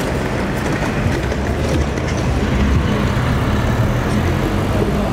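City street traffic: passing vehicles, including a minibus taxi going by close, with a steady low engine hum and tyre and road noise.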